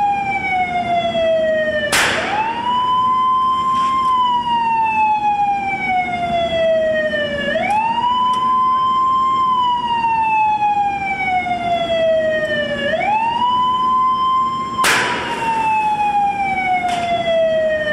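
A siren-like warning tone slides slowly down in pitch, then sweeps quickly back up, repeating about every five and a half seconds. Two loud sharp bangs come about 2 s in and about 15 s in, with a few fainter cracks between them: shots from an industrial furnace tapping gun driving zinc slugs into the tap hole.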